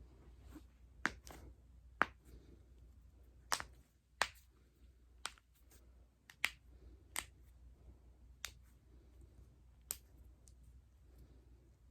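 A person cracking their own joints: about ten sharp pops at uneven intervals, several coming close together in pairs.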